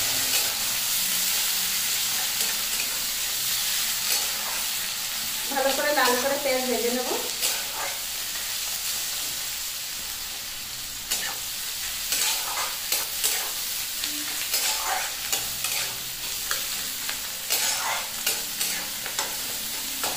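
Chopped onions sizzling in hot oil in a steel kadai, being fried till browned, while a steel spatula scrapes and clinks against the pan as they are stirred, the strokes more frequent in the second half. A brief wavering pitched sound comes about six seconds in.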